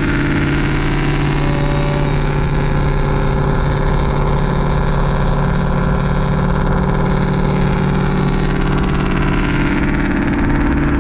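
Straight-piped Ford Mustang GT's 4.6-litre two-valve V8 droning loudly and steadily at highway cruise, heard from inside the car.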